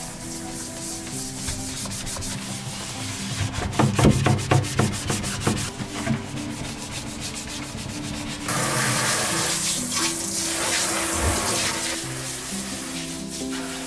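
Brisk scrubbing or rubbing strokes on a surface. About eight and a half seconds in, tap water starts running steadily, over soft background music.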